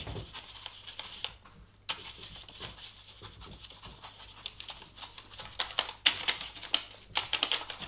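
Paintbrush scrubbing and dabbing oil paint onto a paper surface in quick, short, scratchy strokes. The strokes are busiest about five to six seconds in and again near the end.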